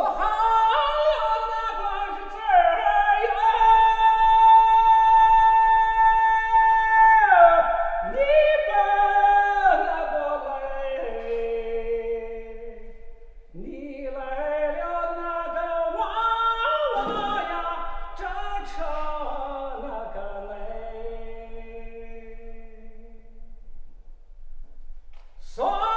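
A solo voice singing a northern Shaanxi folk song, with a long high note held for several seconds that then slides down into falling phrases; a second phrase begins about halfway through.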